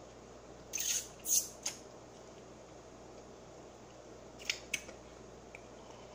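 Eating fried chicken close to the microphone: three crunchy crackles as the skin is bitten, about a second in. Two short sharp clicks follow about four and a half seconds in.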